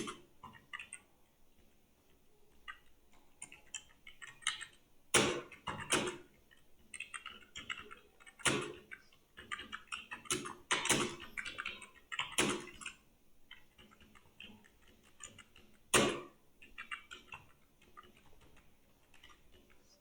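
Computer keyboard being typed on: irregular runs of quick keystroke clicks, with a few louder single strokes standing out.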